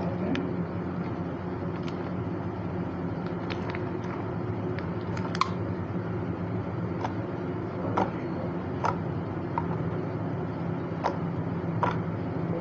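Soft, sticky flower clay being kneaded and stretched by hand, giving irregular small clicks and pops, about a dozen in all, over a steady low hum.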